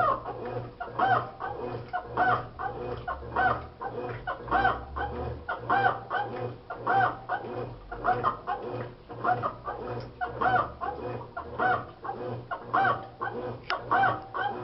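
Consul Maré Super washing machine agitating, with a repeated squeak roughly twice a second, each one rising and falling in pitch, over a steady low motor hum. It is an agitation noise the owner cannot trace, present after the mechanism assembly, seal, bearings and capacitor were replaced.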